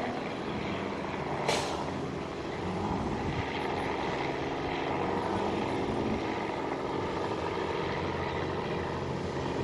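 A light helicopter with a two-bladed main rotor flying past low, its engine and rotor giving a steady drone. A short sharp click about one and a half seconds in.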